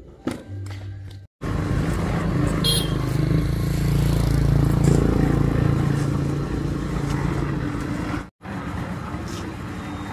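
A motor vehicle engine running steadily, louder between two abrupt cuts about a second and a half in and about eight seconds in.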